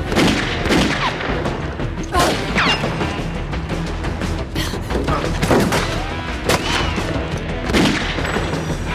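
Gunfight: handgun shots at uneven intervals, about eight over the span, some followed by falling whizzing sweeps, over a dramatic action music score.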